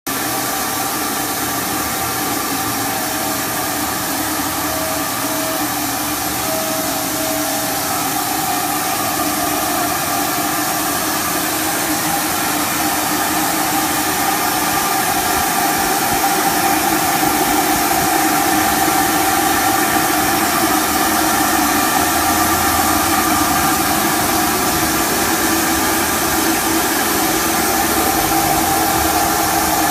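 Industrial machinery running steadily: a loud hiss with several held hums and whines, slowly growing louder. Several seconds in there are a few short tone blips.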